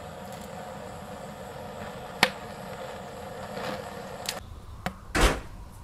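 A metal spoon clicking and knocking a few times against a stainless-steel bowl as foam is skimmed off lamb broth coming to the boil in a cauldron, over a steady low hiss. The loudest knock comes about five seconds in.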